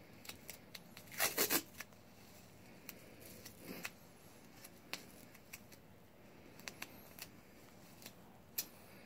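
Athletic tape peeled off its roll in short pulls while being wrapped around a strip of foam backer rod. A quick run of three or four rips comes about a second in, and small clicks and crackles follow.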